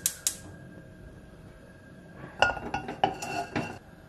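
Gas stove burner lighting with a couple of sharp igniter clicks, then, about two and a half seconds in, a metal non-stick pan set down on the burner grate, clanking and ringing for about a second.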